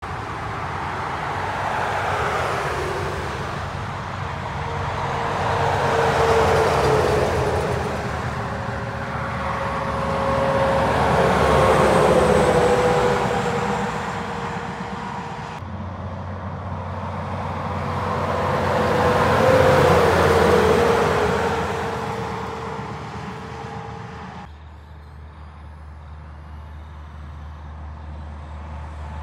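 Semi-trailer trucks driving past on a motorway one after another: engine and tyre noise swells up and fades away with each pass, with a hum that drops in pitch as the truck goes by. The sound cuts abruptly twice, in the second half, to the next pass.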